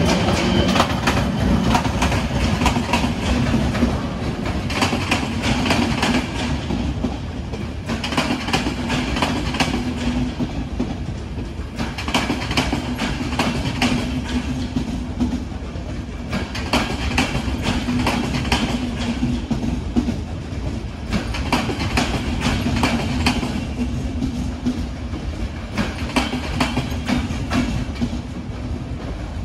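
A departing passenger train rolls past: a Škoda class 380 electric locomotive and then its coaches. The wheels click over the rail joints in repeated groups every second or two, over a steady low hum.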